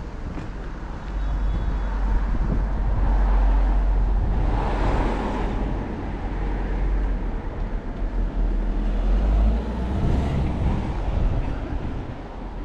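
Street traffic: cars passing, their tyre and engine noise swelling and fading twice, over a steady low rumble.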